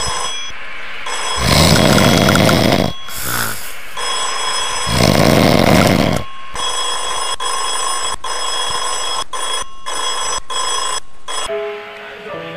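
Loud snoring, drawn out in long noisy breaths, in the first half. A bell then rings steadily for about five seconds, and music starts near the end.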